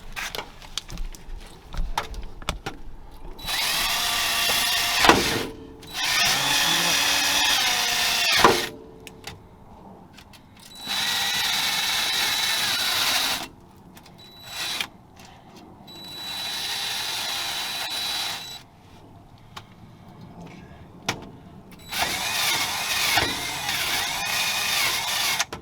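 Handheld electric power tool, drill-type, run in about six bursts of one to three seconds, winding down after each, cleaning the rear-end housing's mating surface before the silicone goes on.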